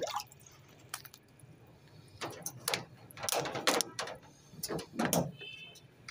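A string of short, irregular knocks and rattles, roughly ten of them spread over a few seconds, with a brief faint squeak about five seconds in.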